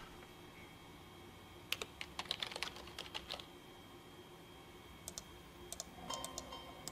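Computer keyboard typing: a quick run of keystrokes lasting about a second and a half, starting a couple of seconds in, then a few scattered clicks near the end, all fairly faint.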